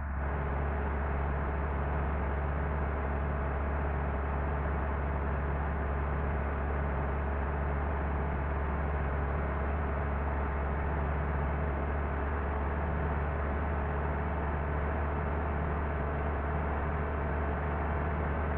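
A bus running at a steady speed: a low engine drone with steady hum tones and road noise, swelling slightly at the start and holding even throughout.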